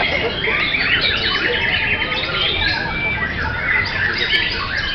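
Several caged white-rumped shamas (murai batu) singing at once in a contest, many quick overlapping whistled and chattering phrases that never break.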